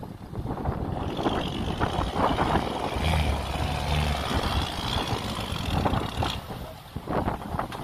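Off-road 4x4's engine running under load, strengthening for a second or so about three seconds in, with rough splashing noise over it.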